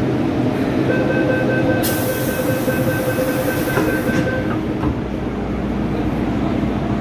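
MTR M-Train door-closing warning tone sounding for about three and a half seconds while the sliding car doors close with a hiss. A steady low hum from the train follows about five seconds in.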